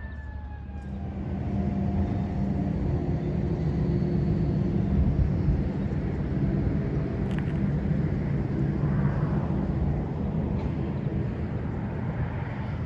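A large engine running steadily, growing louder about a second and a half in and easing off near the end. A falling siren-like tone fades out in the first second.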